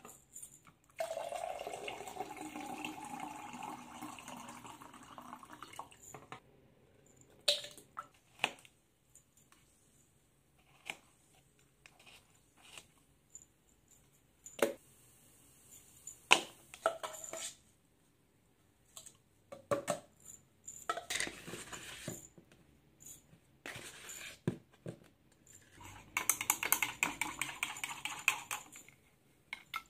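Liquid poured from a metal bottle into a cup for about five seconds, its pitch falling as it goes. Then come scattered clicks and knocks of a spoon, a tub and the cup being handled. Near the end a spoon stirs quickly in the cup, clinking rapidly.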